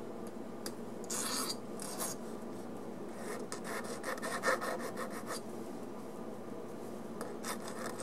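Flat hand file scraping back and forth over a small stamped brass connecting rod, taking the burrs off its rough back: a couple of strokes about a second in, a quicker run of short strokes from about three to five seconds, and more near the end.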